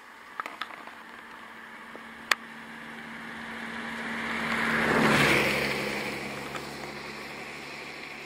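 A vehicle passing by: a broad rushing noise that swells to a peak about five seconds in, then fades. A few sharp clicks come in the first seconds, the loudest just over two seconds in.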